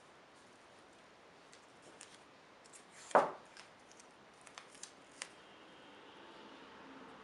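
A single sharp knock about three seconds in, as the dish-brush head carrying its motor and battery is set down on the tabletop, followed by a few light clicks of handling.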